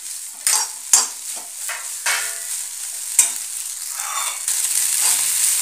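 Steel slotted spatula scraping and tossing noodles in a hot kadhai, with oil sizzling underneath. The strokes come about once a second at first, and the sizzle grows steadier and louder in the last second or so.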